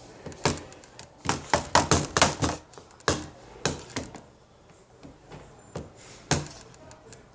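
Sticky homemade slime being squeezed and pulled in the hands, giving a run of sharp wet clicks and smacks, a quick flurry about a second in and a few scattered ones after.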